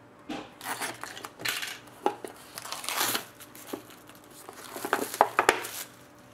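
Wrapping and tape seals being slit with a small blade and peeled off a cardboard trading-card box: irregular crinkling and scraping, with a few sharp clicks and taps.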